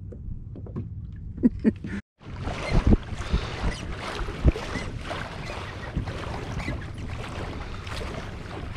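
A few sharp handling clicks as a lobster claw is rigged onto a fishing lure. After a sudden cut about two seconds in, a steady rush of water splashing along a moving kayak's hull, with wind on the microphone and a few small knocks.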